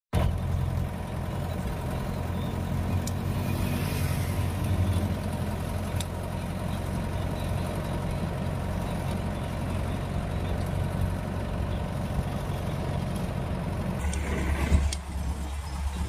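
Steady engine and road noise from a moving vehicle, carrying a low drone that drops lower about fourteen seconds in.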